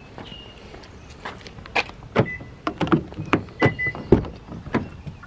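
A car door being unlocked and opened by hand: a run of sharp clicks and knocks from the handle and latch, the strongest near the end, with a few short high beeps among them.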